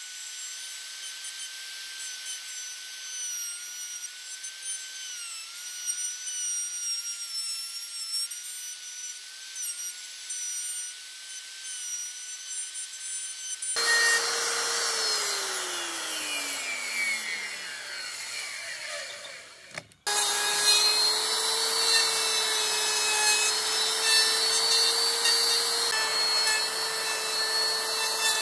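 Electric power tools working hardwood. For about 14 s a high-pitched motor runs steadily over a rasping of wood. Then a motor winds down, falling in pitch, and after a sudden short break another tool runs steadily at a lower pitch with a rough grinding hiss.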